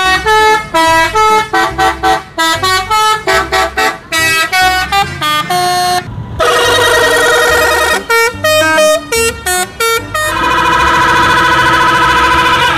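Musical multi-tone air horns on coach buses sounding quick melodic runs of short notes. The runs break into long wavering chords about six seconds in and again from about ten seconds in.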